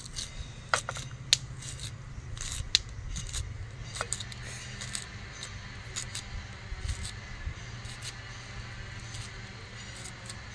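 Kitchen knife cutting an onion held in the hand: irregular sharp clicks as the blade cuts through, over a steady low hum.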